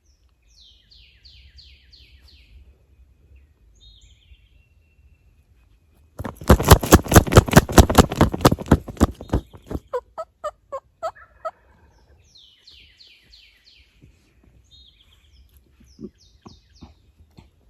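Wild turkey gobbler gobbling: one loud, rapid rattling gobble about six seconds in that trails off into weaker notes over the next couple of seconds. Short songbird trills come before and after it.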